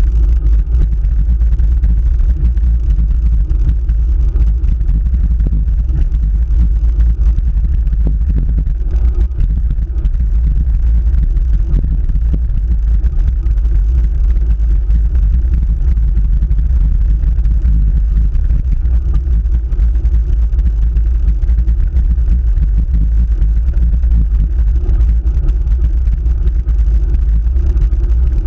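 Steady low rumble of wind buffeting and road vibration picked up by a camera on a road bike's handlebars while it climbs a paved hill.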